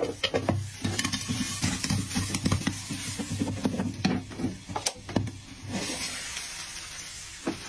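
Popcorn kernels popping rapidly in a frying pan under a glass lid, many sharp pops in quick succession; the popping thins out and grows fainter after about six seconds.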